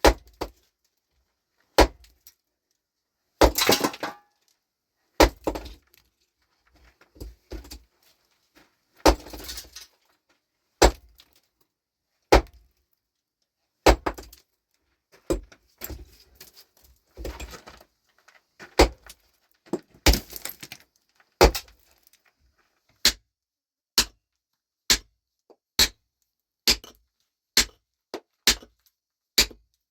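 Rock being broken by repeated hard strikes, with loose stones rattling and scraping between blows. From about two-thirds of the way in, the blows come steadily, about one a second.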